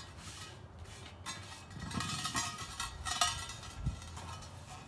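A bare wheel rim being cleaned by hand: intermittent scraping and rubbing on the metal, with light metallic clinks.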